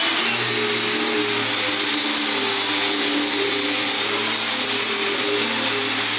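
Handheld electric angle grinder with a sanding disc running steadily against the wooden face of a door: a steady motor whine under the hiss of the disc on the wood.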